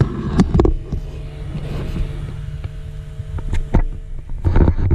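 Small cooling fan on the back of an LED headlight bulb running with a faint steady whir, over a steady low vehicle hum, with a few knocks.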